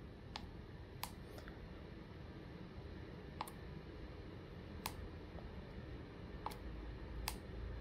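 Faint clicks of a push button on a V9-TPX automatic chicken coop door controller being pressed again and again, about seven presses at uneven intervals, stepping through the settings menu.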